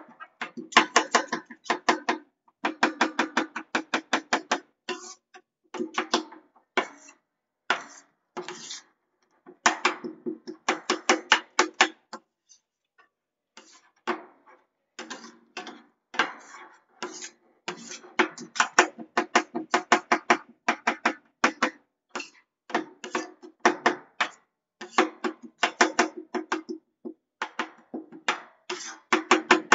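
Two metal spatulas rapidly chopping and tapping on a steel ice cream roll cold plate, in fast runs of clicks with a ringing metallic tone. There is a short pause about twelve seconds in.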